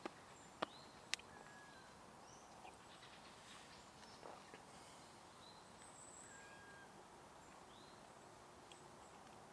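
Near-quiet outdoor background with faint, scattered short bird calls: brief chirps and little whistles. Three sharp clicks come in the first second or so.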